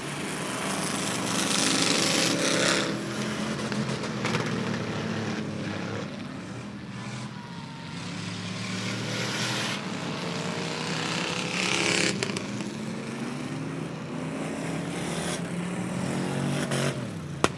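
Super Stock race cars running laps on a wet asphalt oval: several engines sound together, their pitch rising and falling, and the sound swells and fades as the cars pass, over a hiss that grows louder with each pass.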